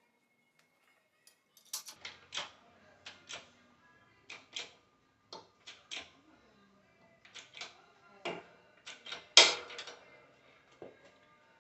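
Irregular sharp metallic clicks and knocks from metal parts and tools being handled during alternator bearing removal, with the loudest knock near the end.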